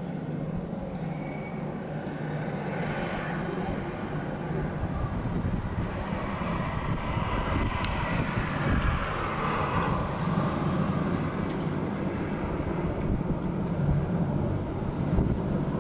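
Three AH-64 Apache attack helicopters flying past, their rotors making a steady low thrum that swells about halfway through as they pass.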